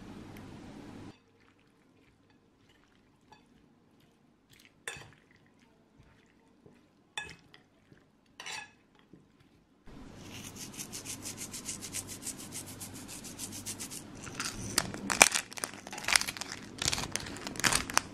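After a near-silent stretch broken by a few soft taps, a fork tosses a dressed salad of raw sweet potato ribbons in a bowl: a quick, steady run of scraping and rustling, then louder clinks of the fork against the bowl over the last few seconds.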